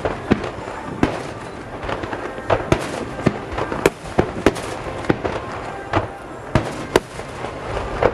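Aerial fireworks bursting: a rapid, irregular string of about a dozen sharp bangs over a steady background rumble.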